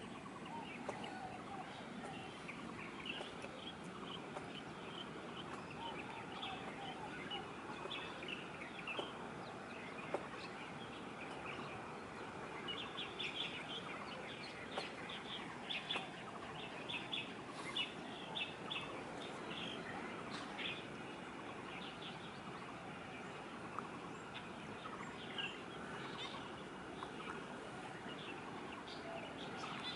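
Small birds chirping in quick, repeated short calls, busiest around the middle, over steady outdoor background noise.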